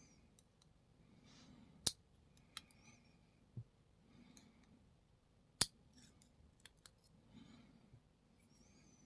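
Small metal lock parts being handled on a hard surface: sharp light clicks and taps, two louder ones about two and five and a half seconds in, with faint breathing between.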